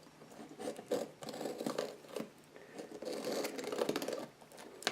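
A large cardboard parcel being opened by hand: irregular scraping, rustling and tearing of packing tape and cardboard, with a few sharp clicks.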